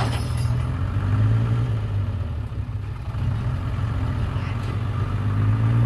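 Engines of a small farm tractor and a dump truck running together, the engine note swelling about a second in and again near the end as the tractor pulls on a tow chain to free the tipping truck stuck with clay.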